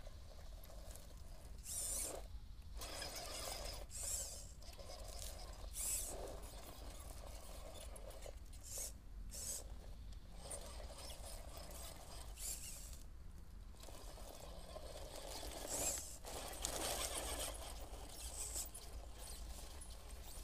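1:10 RC rock crawler's electric brushless drivetrain whirring in short surges as throttle is applied, its tyres scrabbling on a sloped rubber surface and dry leaves. The surges come irregularly, every few seconds, with a steady low hum beneath.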